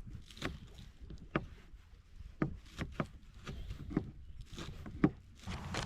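Knife chopping green onions on a cutting board: about a dozen sharp, irregularly spaced chops, over a low steady rumble.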